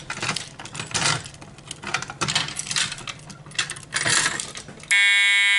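Metal keys jangling and clicking as they are handled. About five seconds in, a fire alarm horn starts sounding, a loud steady tone.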